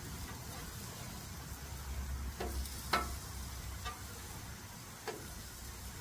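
Crab cakes sizzling on a hot gas flat-top griddle, with four short metal clinks from the steel spatula, the loudest about halfway through.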